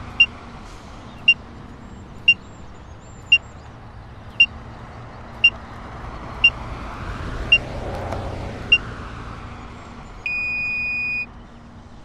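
Animation sound effects: a vehicle driving past, swelling and fading, with short beeps about once a second as the days tick over. Just after ten seconds a steady beep lasts about a second.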